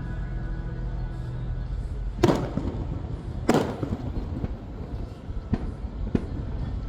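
Fireworks shells bursting: two loud booms a little over a second apart, each with a rolling echo, then a couple of fainter pops. Faint music plays during the first couple of seconds.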